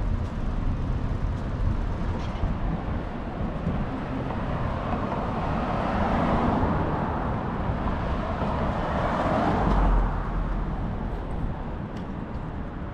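City street traffic noise: a motor vehicle passing, the sound building over several seconds to a peak about ten seconds in and then falling away.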